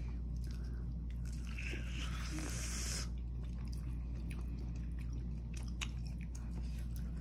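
Close-up chewing of a bite of tempe mendoan (thin battered, fried tempeh): soft wet mouth noises and small clicks, with a brief hissy stretch about two seconds in. A steady low hum runs underneath.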